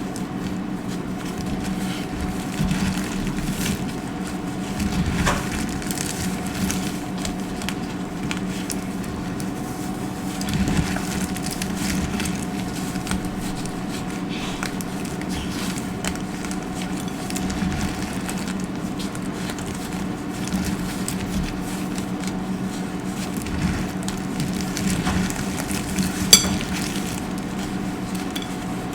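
Dry soap being crunched and crumbled, a steady run of small crackles and crunches over a low steady hum, with one sharp loud crack about 26 seconds in.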